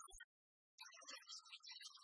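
Quiet background music cuts off, there is a moment of dead silence, and a new piece of music starts faintly just under a second in.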